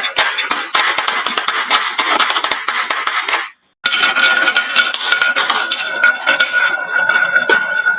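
Many marbles clattering down a wooden marble-run slope into toy trucks: a dense, rapid stream of clicks and clinks. It cuts off abruptly about three and a half seconds in, then resumes a moment later with a steady high tone running underneath.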